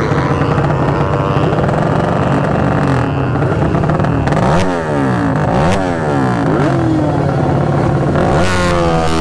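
Several motorcycle engines running at once, with throttles blipped so that their pitches rise and fall across each other about halfway through and again near the end.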